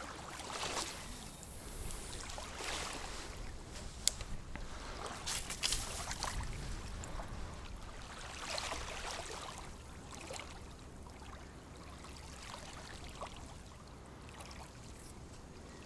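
Footsteps and rustling through dry reeds and mud on a shoreline, a few short scuffs and a click in the first half, then a quieter stretch of small waves lapping at the bank.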